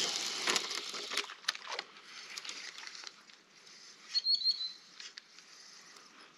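Spinning reel being cranked to retrieve a lure: a few sharp clicks in the first two seconds, then soft patter and ticking, with a brief high chirp about four seconds in.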